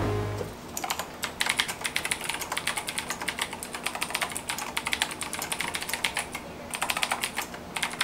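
Fast typing on a mechanical keyboard with clicky blue key switches, built into an AlphaSmart 3000 portable word processor, with a short pause about six seconds in. Background music fades out in the first half-second before the typing starts.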